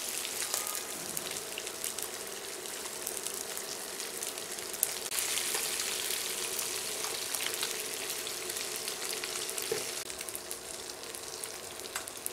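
Marinated fish pieces sizzling and crackling in hot mustard oil in a non-stick frying pan, with light scrapes and knocks of a metal slotted spatula against the pan as the fried pieces are lifted out; one sharp click about five seconds in.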